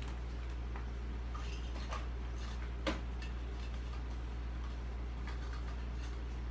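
Scattered faint clicks and taps of small tools and objects being handled during a search, the sharpest about three seconds in, over a steady low hum.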